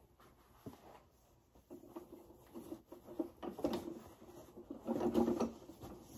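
Cloth trousers rustling and brushing as they are handled and worked onto a prop's metal-pole frame, with a few light knocks. The rustling is loudest about five seconds in.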